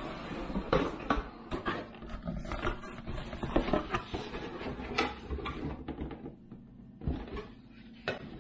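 Cardboard box being opened and its packaging handled: irregular rustling, scraping and light knocks, easing off briefly about six seconds in.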